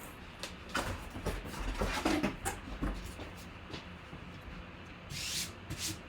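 Handling noise: a run of light clicks and rustles over the first three seconds, then a short rustling hiss about five seconds in and a couple more clicks near the end.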